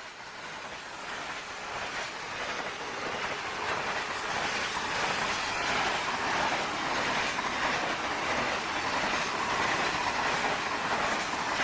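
V/Line VLocity diesel multiple unit running past, its wheels clicking over the rail joints. The sound grows louder over the first few seconds, then holds steady.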